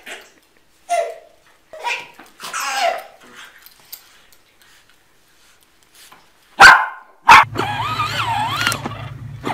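A small dog gives a few short barks while tugging at a baby's clothes. Two sharp loud knocks follow. Then a child squeals over the steady low hum of a battery-powered ride-on toy quad.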